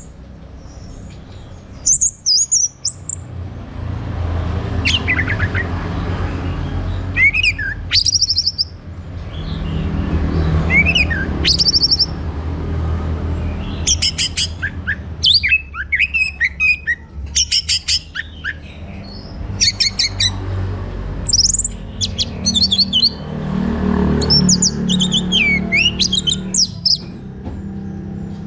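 Orange-headed thrush singing: a varied run of clear rising and falling whistles, fast trills and rapid buzzy notes, delivered in bursts that come most thickly around the middle of the stretch. A steady low rumble runs underneath.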